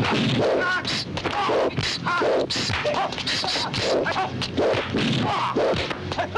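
Kung fu fight sound effects: a rapid run of dubbed punch and staff-strike whacks with short shouted yells between them, several a second.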